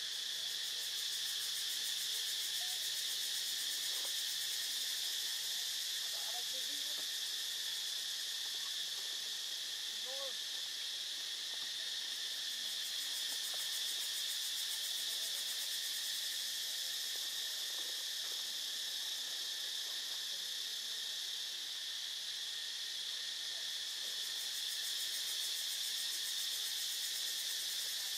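Steady, high-pitched drone of an insect chorus. A few faint short calls rise over it in the middle.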